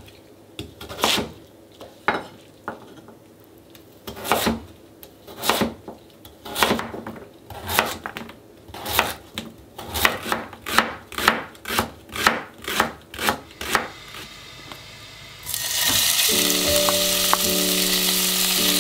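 Kitchen knife cutting an onion on a wooden cutting board: single knocks at first, then a quicker run of cuts about two a second. Near the end, raw cubed beef goes into a hot pot and starts to sizzle loudly as it sears.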